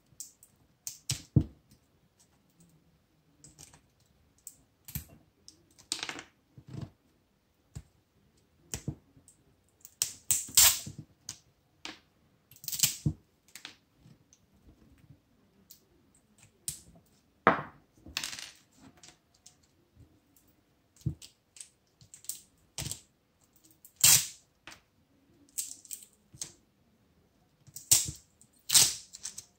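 Round-nose pliers working the spot-welded metal connection strips off cylindrical 18650 lithium-ion cells: irregular sharp metallic clicks, snaps and short scrapes. Now and then a cell or a scrap of strip clinks down on the table.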